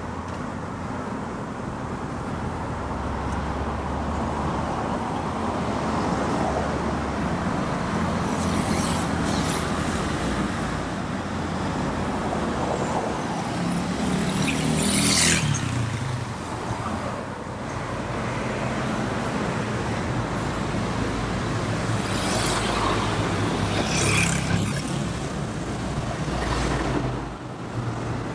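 City road traffic: car engines and tyres running steadily, with louder vehicles briefly sweeping past about halfway through and again near the end.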